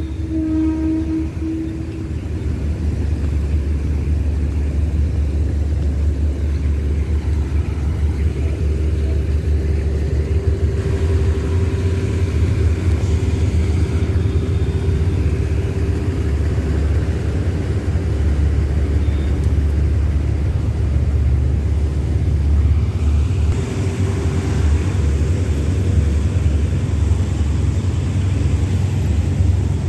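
A diesel passenger train's horn sounds and stops about two seconds in. After that comes the steady low rumble of the train beside the platform, with a steady engine drone in it.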